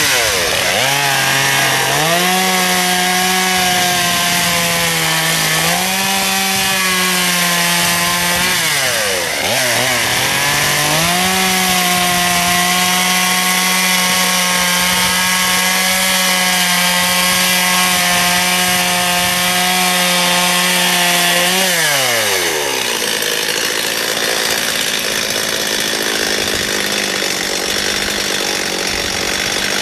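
Gas chainsaw cutting into a wooden plank, revving up and holding at full throttle. It drops back briefly about nine seconds in, then revs again and holds steady. It winds down about three-quarters of the way through, leaving a duller steady noise.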